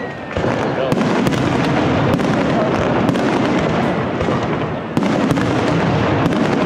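Castillo aerial fireworks display: a dense, continuous barrage of shell bursts and crackle, growing louder about half a second in and again about five seconds in.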